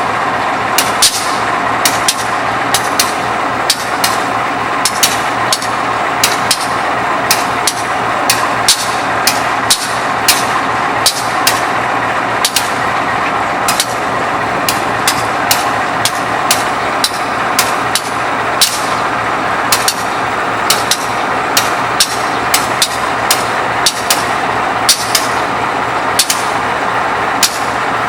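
GE 7FDL diesel prime mover of a CC 201 locomotive idling steadily, with frequent sharp clicks, a few a second, over the engine's drone.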